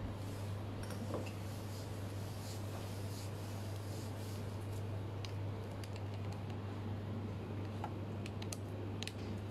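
Steady low hum of kitchen equipment, with a few light clinks of teaware: a cast-iron teapot set down about a second in, then tea poured from it into a small ceramic cup near the end, with a few sharp little clicks.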